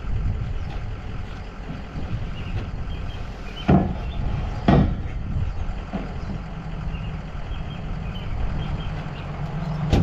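Truck on the move, its engine and road noise rumbling steadily, with two sharp thumps about a second apart near the middle.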